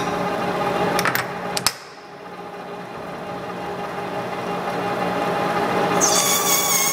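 Lathe running with a steady hum and whine, with a few sharp clicks about a second in. Near the end the cutting tool meets the end of the spinning clear plastic rod and cuts with a high-pitched squeal.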